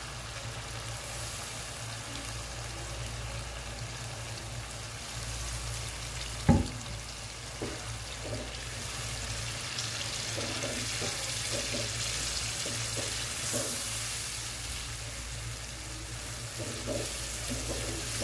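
Soaked white urad (mash) lentils sizzling as they fry in masala in a frying pan, stirred with a wooden spatula whose strokes scrape through the pan more often in the second half. One sharp knock about six and a half seconds in.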